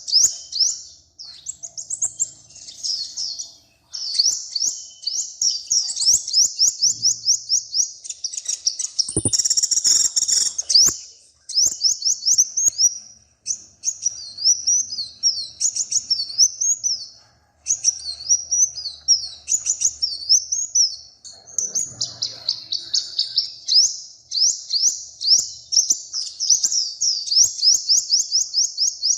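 A small songbird singing long, high, rapid phrases of fast repeated notes, nearly without pause. About nine seconds in there is a short burst of rustling and clicks.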